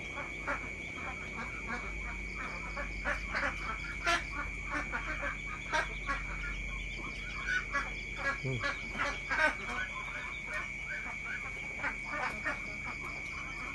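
Night-time chorus of frogs croaking in many short, irregular calls, several a second, over a steady high-pitched drone.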